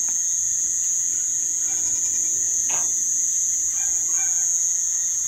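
Steady, high-pitched chorus of crickets trilling without a break, with a single faint click about two and a half seconds in.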